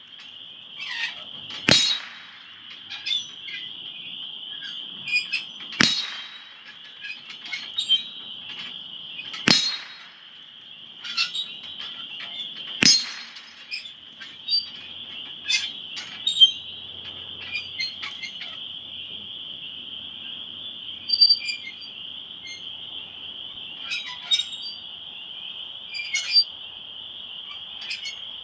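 A slow string of .22 LR gunshots, sharp single cracks a few seconds apart, over a continuous high, steady trilling of insects.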